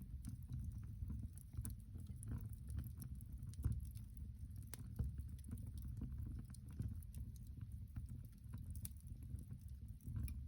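Wood fire burning in a cast-iron stove: scattered crackles and pops over a steady low rumble, with a couple of louder pops midway.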